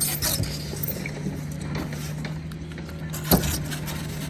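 An engine running steadily with a low hum, with a few light scrapes near the start and one sharp knock a little past three seconds in.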